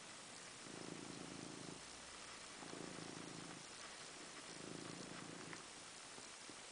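Black-and-white domestic cat purring, the purr swelling into three louder stretches about two seconds apart.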